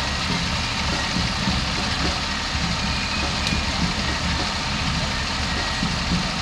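Fire engine's diesel engine idling with a steady low rumble as the truck creeps forward at walking pace.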